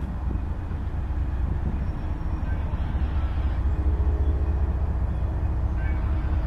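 Low rumble of an approaching CSX GE ES44AH diesel-electric locomotive, still out of sight, growing slowly louder, with a faint steady engine hum coming in about halfway through.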